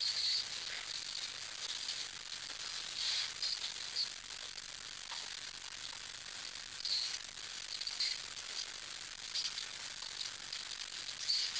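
Gloved hands handling a plastic electrical connector and its wiring: small scattered clicks and rustles over a steady hiss.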